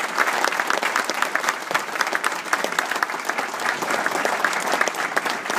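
A roomful of people applauding: many hands clapping at once, steady throughout.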